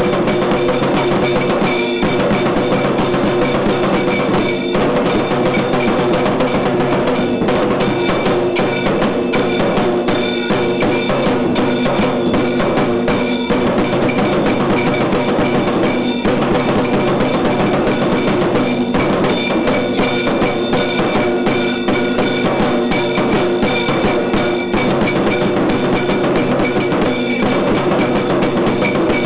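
Tiru Kailaya Vadyam temple ensemble playing: dense, fast drumming and percussion under several steady held tones, loud and unbroken.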